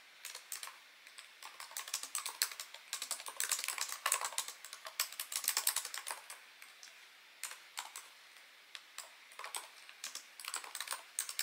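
Typing on a laptop keyboard: irregular runs of quick keystrokes with short pauses between them.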